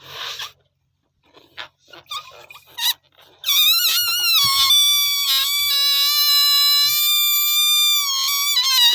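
Rubber balloon squealing as air is let out through its stretched neck: a short hiss, a few scattered squeaks, then about three and a half seconds in a loud, high-pitched squeal that wavers at first and then holds a steady pitch.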